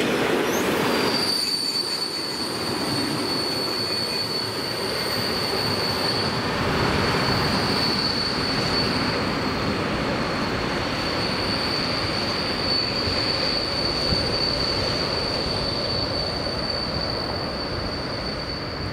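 Freight train of tank wagons rolling along, the wheels giving a steady high-pitched squeal that starts about a second in and holds, over the rumble of the wagons on the rails.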